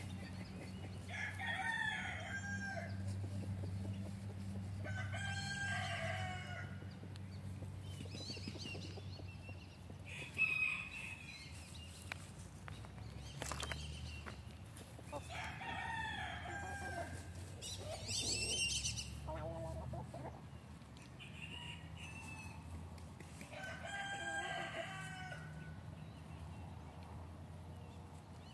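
Roosters crowing again and again, one of them an Olive Egger rooster, with hens clucking in between; about eight calls come one after another, one pitched higher than the rest. A short sharp sound about a third of the way in is the loudest moment.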